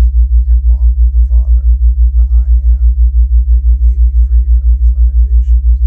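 Loud, deep hum pulsing evenly about five times a second: a theta-wave entrainment tone.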